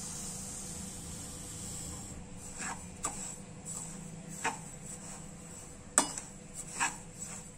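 Slotted spatula stirring dry semolina in a nonstick kadai for dry-roasting: a soft grainy pouring hiss at first, then about six irregular clicks and scrapes of the spatula against the pan, the sharpest about six seconds in.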